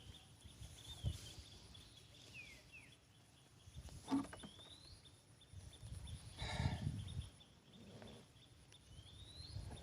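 Birds calling outdoors: short rising whistled notes, repeated several times, and a couple of falling ones, with two louder calls about four and six and a half seconds in. Underneath is a steady high insect drone and a few low knocks.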